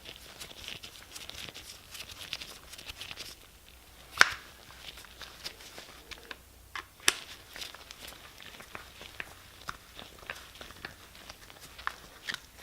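Light clicks and rustling of small chainsaw parts being handled and fitted by hand, with two sharper clicks about four and seven seconds in.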